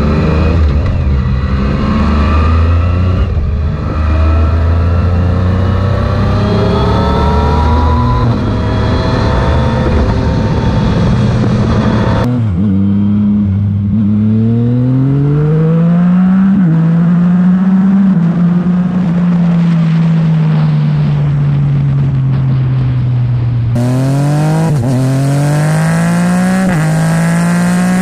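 Yamaha MT-09's 847 cc three-cylinder engine through an Akrapovic full-system titanium exhaust with no baffle, accelerating and shifting up through the gears. The revs climb and drop back at each change. The sound changes abruptly about halfway through, where a stretch of steadier riding has the engine note drifting gently up and down, and again near the end, where there are quick rising revs with two upshifts.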